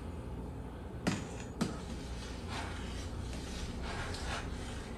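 Long spoon stirring malt extract into wort in a stainless steel pot, knocking sharply against the pot twice about a second in, over the steady low rumble of the gas burner heating the pot.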